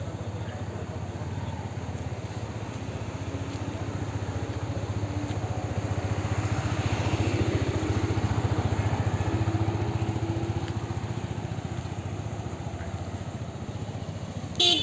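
Yamaha R15 V4's 155 cc single-cylinder engine running at low speed as the motorcycle rides off. It grows louder for a few seconds midway and then eases off, with a brief loud sound right at the end.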